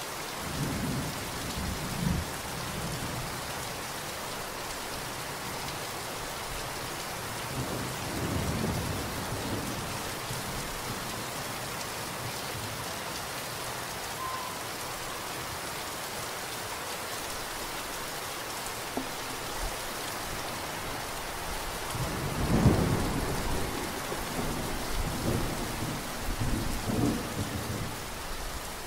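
Steady rain with low rolls of thunder: a short one near the start, another about eight seconds in, and the loudest about two-thirds of the way through, rumbling on in waves for several seconds.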